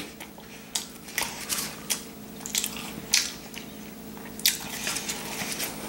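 Wet chewing and mouth sounds of someone wolfing down chicken nuggets: irregular smacks and clicks over a faint steady hum.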